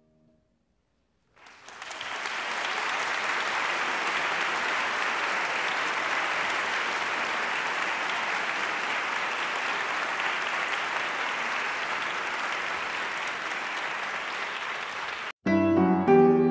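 Concert hall audience applauding steadily, starting about a second and a half in and cutting off abruptly near the end. Solo piano music begins right after the cut.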